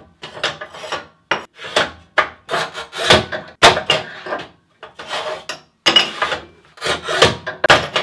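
Montolit Masterpiuma manual tile cutter scoring tile and breaking it off, one cut after another. The cutting wheel makes repeated scratchy strokes, about one a second, among sharper knocks of the tile snapping and being slid along the bed.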